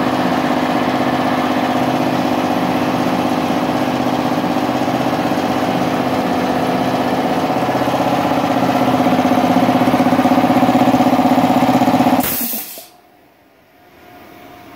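Belt-driven twin-cylinder MultiPro air compressor (1 HP electric) running steadily, growing a little louder a few seconds before it shuts off about twelve seconds in with a short burst of hiss, typical of the pressure switch cutting out at full tank pressure and the unloader valve venting the head.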